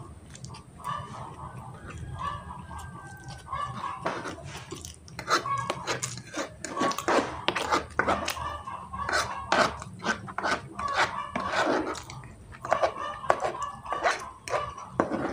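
Close-up slurping and chewing of instant fried noodles, with a fork clinking and scraping against the tray. The clicks and scrapes come thick and fast from about four seconds in.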